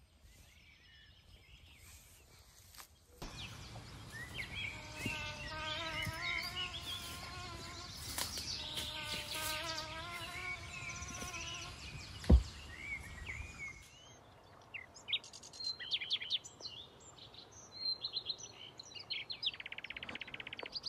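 Woodland birds calling and chirping, with insects buzzing. A repeated wavering call sounds through the middle and a fast buzzy trill comes near the end. A single sharp thump about twelve seconds in is the loudest sound.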